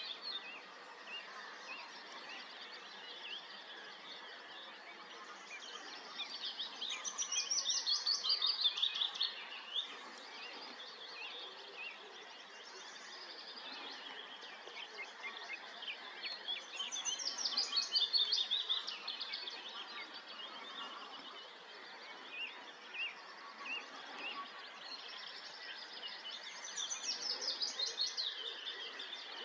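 Songbird singing: a fast, falling phrase of about three seconds, repeated roughly every ten seconds, over scattered chirping from other birds.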